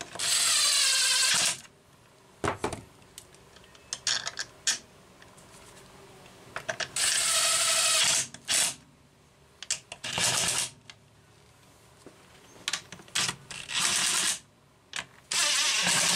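Cordless impact driver driving screws into a chainsaw's plastic housing, in several short runs of about a second each, with small clicks and taps between the runs.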